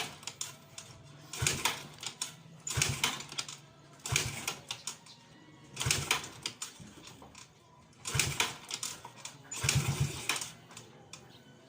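A Yamaha Mio scooter engine being cranked over again and again in short bursts of mechanical clatter, about six attempts a second or two apart, without catching. The hard starting is blamed on a sunken, leaking valve.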